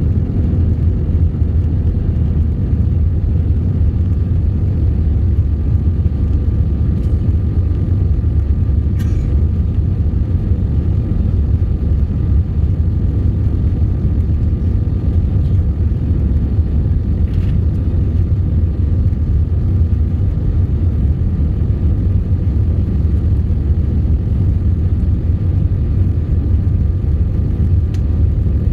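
Jet airliner cabin noise: engine and airflow rumble, loud and steady, with a faint steady whine above it, heard from a window seat over the wing during the climb out of Manila.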